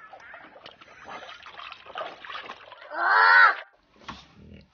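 Bulldog puppy splashing and dabbling in the water of a plastic kiddie pool. About three seconds in comes a loud, short pitched call lasting about half a second. After a brief gap, a low rumble starts near the end.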